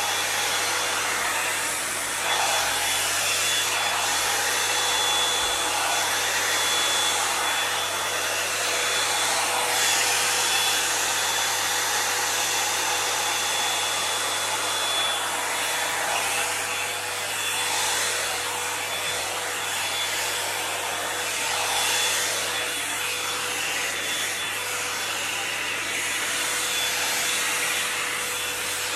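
Toni & Guy hot air volumiser brush running steadily: a continuous rush of blown air with a faint steady whine, drawn through long hair as it dries.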